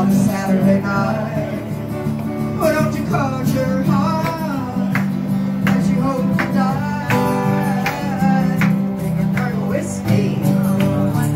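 Small live band playing a song: strummed acoustic guitars and electric guitar, with a woman's voice singing the melody over them.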